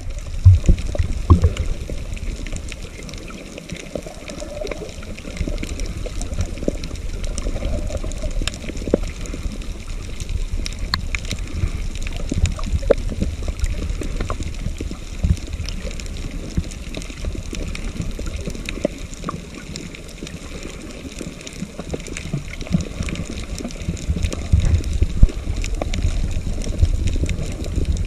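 Muffled underwater sound of water moving around a submerged action camera: a low rumble and sloshing, with faint scattered clicks and crackles throughout and a few louder bumps.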